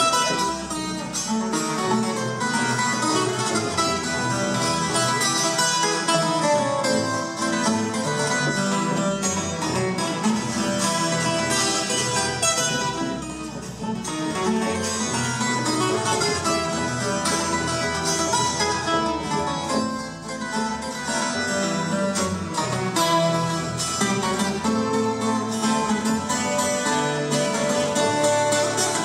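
Colombian Andean string music played live: tiples and requinto plucked and strummed over a double bass line, in a steady dance rhythm.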